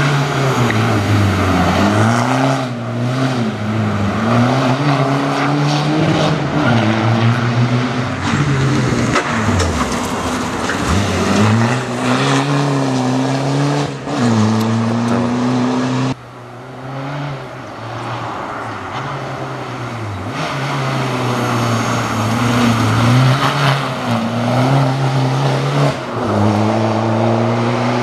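Škoda Fabia rally car driven hard, its engine revving up and dropping back again and again as it shifts gears. The sound cuts abruptly a little past halfway to another pass that starts quieter and grows louder.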